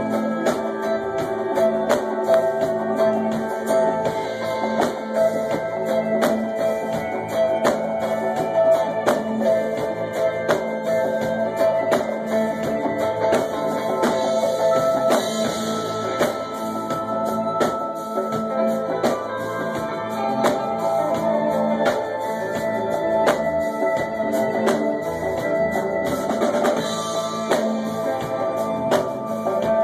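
Live rock band playing an instrumental stretch: electric guitars and keyboard over a steady drum-kit beat.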